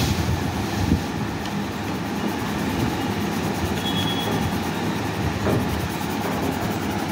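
Coloured pencil scratching rapidly back and forth on paper as an area of a map is shaded in, over a steady low rumble.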